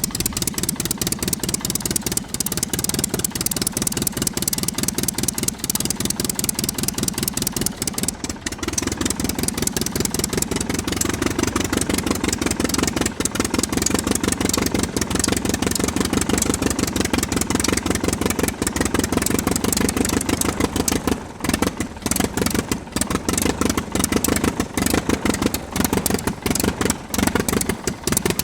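A piston engine running with a fast, even firing pulse. It picks up a little about a third of the way in and then holds steady.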